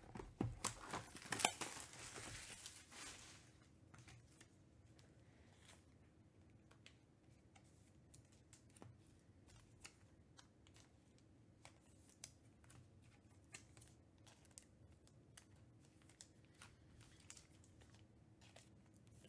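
A cardboard trading-card hobby box is taken off a stack and set down. The rustle and scrape of handling lasts about three seconds, with one sharp knock near the middle. Then it is near quiet with faint scattered ticks.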